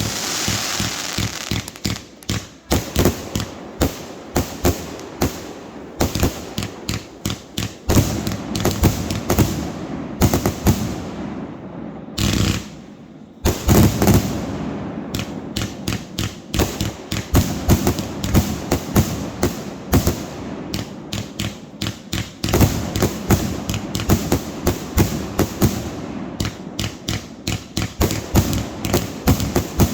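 Fireworks going off in a dense, irregular barrage of sharp bangs and crackles, several a second, with a short steady rushing stretch a little before halfway.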